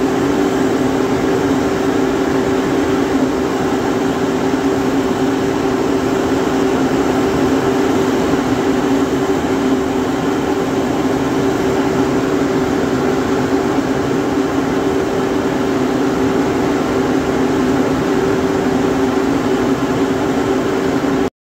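Loud, steady mechanical hum with a low two-note drone, from a motor or fan running close by; it cuts off abruptly near the end.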